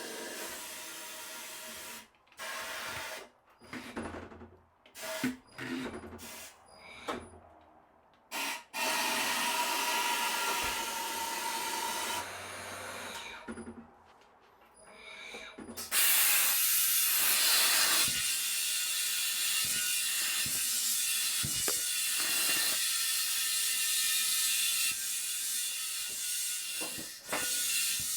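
Tire changer machine working in short mechanical bursts, then, about halfway in, compressed air starting to hiss loudly and steadily, as when a freshly mounted tire is inflated.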